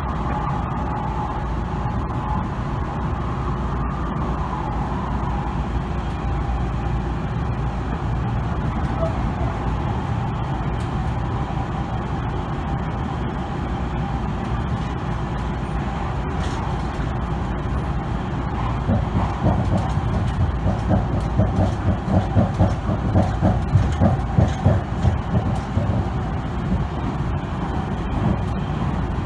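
Electric commuter train running at speed, heard from inside the car: a steady rumble of wheels on rail with a faint motor whine. About two-thirds of the way through, a quick, even clatter of several beats a second comes in and grows louder for a while.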